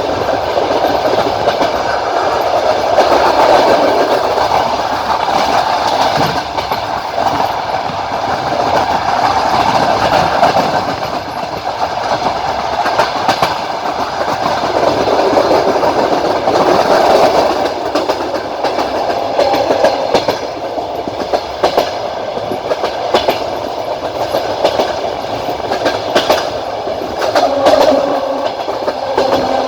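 Passenger train wheels rolling on the rails, with a steady rumble and clickety-clack over the rail joints, heard from inside the carriage by the window.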